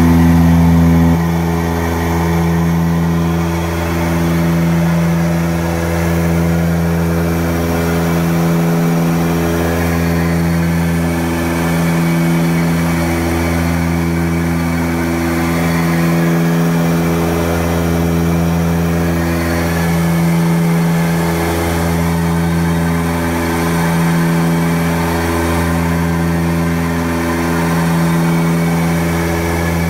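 Cockpit drone of the Antonov An-24B's two Ivchenko AI-24 turboprop engines and propellers in flight: a loud, steady, deep hum that swells and fades in a slow, regular beat every couple of seconds.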